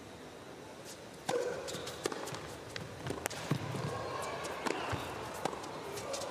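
A tennis rally on an indoor hard court. A second serve is struck about a second in, then the ball is hit back and forth in a string of sharp racket strikes and bounces over a low murmur of arena noise.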